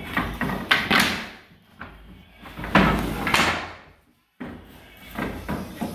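Oak tongue-and-groove flooring planks being pulled off a pile and slid into place, wood scraping and knocking against wood in two main bursts about a second and three seconds in.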